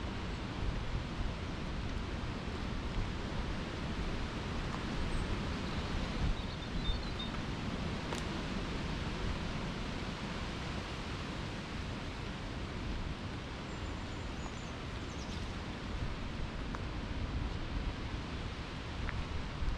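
Steady outdoor wind noise with rustling and low buffeting on the microphone. A few faint high chirps sound about a third of the way in and again past the middle.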